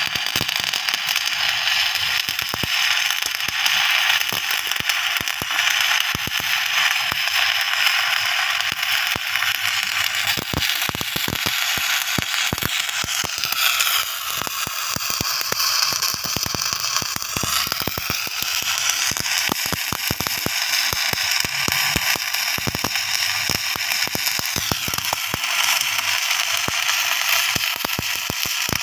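Electric arc welding, the arc giving off a continuous dense crackle and sizzle while a weld bead is laid. A faint tone falls and rises again about halfway through.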